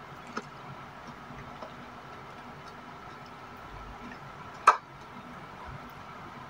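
Quiet sounds of eating by hand from ceramic bowls: a faint click about half a second in and one sharp, loud click a little before the five-second mark, over a steady low hum.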